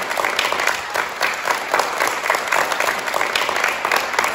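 Audience applauding: many hands clapping steadily and densely.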